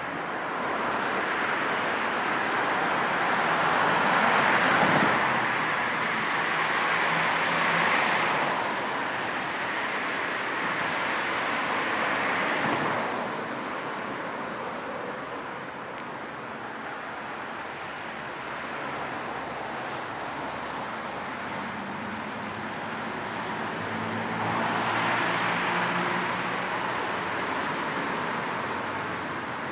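Road traffic: cars passing one after another, their tyre and engine noise swelling and fading over a steady hum. Several pass in the first half, there is a quieter stretch, and another vehicle passes near the end with a low engine hum.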